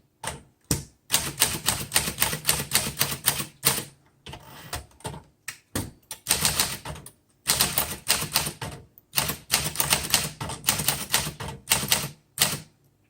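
1947 Smith Corona Sterling manual typewriter being typed on: quick runs of sharp key and typebar strikes broken by short pauses, with a softer rasping stretch about four seconds in.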